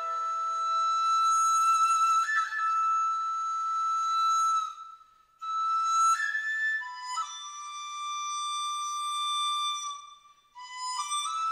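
Background music: a solo flute melody of long held notes joined by short slides, in phrases broken by brief pauses about five and ten seconds in.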